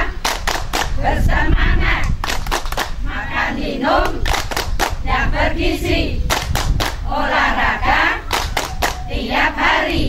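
A group of women singing loudly together in unison, with frequent hand claps along to the song.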